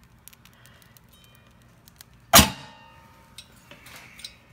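Multi-wire soap cutter slicing through a block of soap: a few light clicks, then about two and a half seconds in a single sharp snap as the wires cut through, with a metallic twang ringing out for about half a second. A few more small clicks follow near the end.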